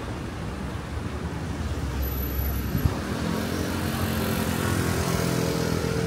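Street traffic: the low rumble of passing motor vehicles, with one engine growing louder through the second half as it passes close by. A single sharp tick sounds about halfway through.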